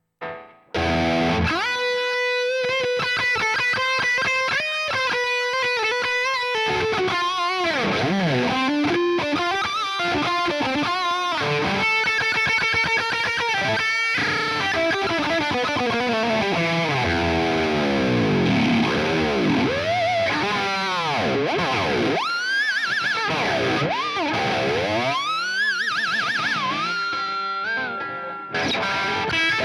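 Ibanez S320 electric guitar played through distortion, starting about a second in: held notes, fast runs, and swooping pitch bends and dives in the second half.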